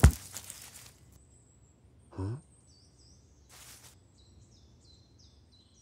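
A cartoon sound effect of an apple hitting the grass with a sharp thud at the start, then a rustle. About two seconds in comes a short vocal grunt from the rabbit, then another brief rustle, with birds chirping from the middle on.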